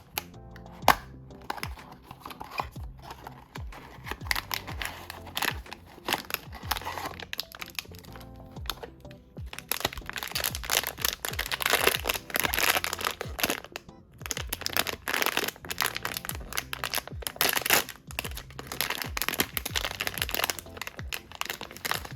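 Blind-box packaging being handled and opened: plastic or foil crinkling and tearing, with sharp cracks, over background music. The crinkling gets much denser and louder about halfway through.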